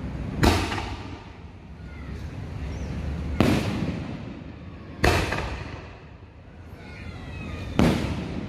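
Consumer aerial firework shells bursting overhead: four sharp bangs a second or two apart, each followed by a rumbling echo that dies away.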